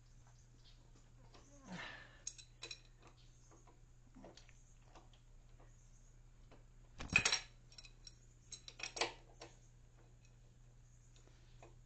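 Scattered metallic clicks and clinks of a wrench working on a stuck hydraulic fitting, with the loudest clank about seven seconds in and a short run of clinks around nine seconds, over a faint steady hum.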